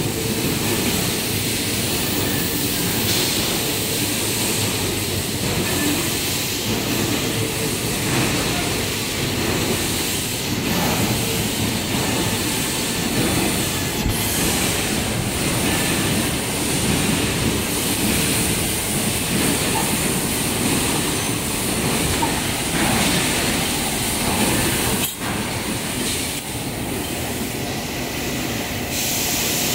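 Aluminium coil processing line running: a steady, loud mechanical noise from the rollers and winding machinery as colour-coated aluminium strip is fed through and rewound onto a coil.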